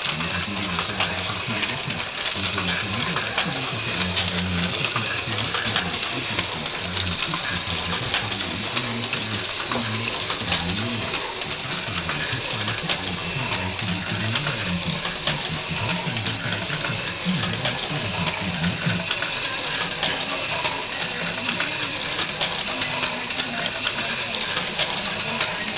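Small electric drive of a homemade model fairground ride running steadily, a continuous hiss with frequent light clicks from the moving ride.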